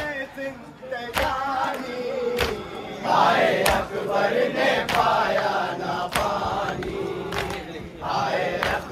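A crowd of male mourners chanting a noha in unison, louder from about three seconds in, with a sharp beat about every second and a quarter keeping time.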